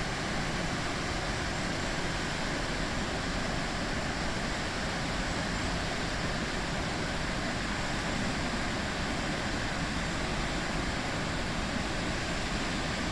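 Hakusen Falls waterfall in Eniwa Gorge: the steady rush of falling water, an even unbroken noise.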